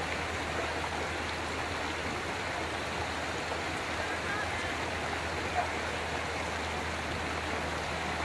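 Steady rushing of water from a small garden waterfall spilling into a pond, an even hiss with no breaks, over a faint low hum.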